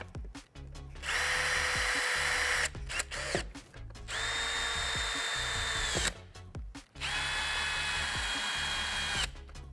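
Cordless drill-driver running in three steady whining bursts of about two seconds each, driving screws to fasten the fan cover onto the cooler's case.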